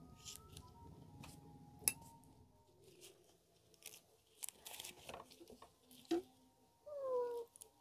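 Faint scattered clicks, knocks and rustles of things being handled, with one sharp click about two seconds in. Near the end a cat meows once: a short cry that falls slightly in pitch.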